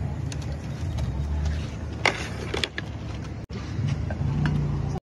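Steady low rumble of street background noise, with a sharp click about two seconds in.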